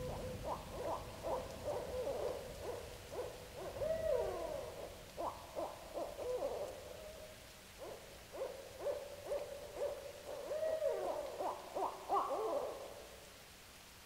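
Owls calling in rapid hooting, cackling bouts, with wavering rising and falling notes. There are two long bouts, the second fading out about a second before the end.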